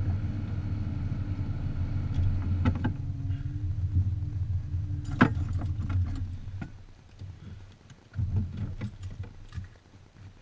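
Car running with a steady low hum and a few sharp clicks. About six seconds in the running sound dies away, leaving scattered soft knocks and thumps.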